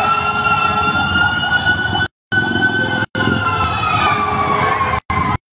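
Fire truck siren wailing in one slow rise and fall, over the low noise of street traffic. The sound cuts out briefly a few times.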